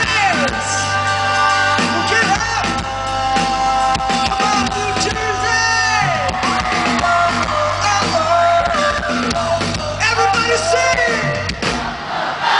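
Live rock band playing loudly, electric guitars and drums under a male lead singer, heard from among the audience.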